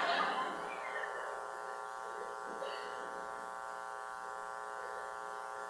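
Steady electrical buzz with many evenly spaced overtones, the mains buzz of the sound system. A brief burst of noise sits right at the start and fades within about half a second.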